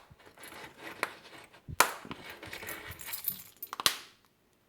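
Plastic shell of a 2002 Toyota Camry key remote being pressed shut by hand: sharp plastic clicks as the halves snap together, three in all, the loudest about two seconds in, with handling rustle between them.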